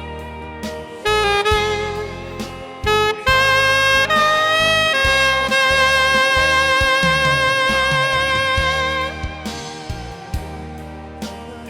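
Saxophone playing a slow ballad melody over a backing track: a run of short notes, then one long held note through the middle that fades near the end.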